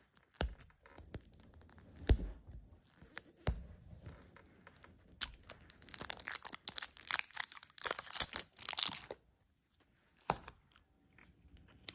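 Plastic packaging of a putty container being handled and torn open: a few sharp clicks, then several seconds of crackling, tearing plastic, then one more click.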